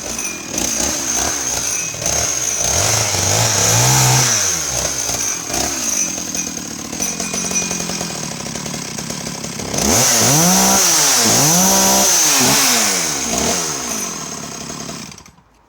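Sachs Dolmar 102 39cc two-stroke chainsaw running and cutting timber, its engine pitch rising and falling again and again, loudest from about ten seconds in. It then drops back and cuts off abruptly just before the end as the saw is switched off.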